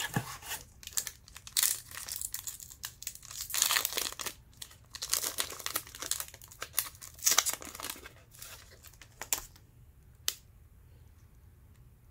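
Plastic wrapper of a basketball trading-card pack being torn open and crinkled: a run of crackling tears and rustles that stops about nine and a half seconds in, followed by a single sharp click.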